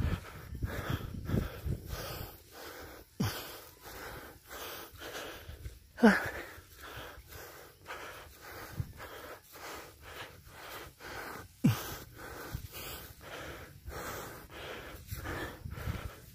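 A person panting hard while walking up a steep grassy slope, fast breaths about two a second, with a few louder gasps that drop in pitch: he is out of breath from the climb.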